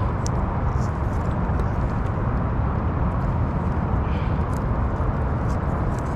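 Steady wind rumble on the microphone, with a few faint small clicks as hands handle electrical wires and a plastic connector.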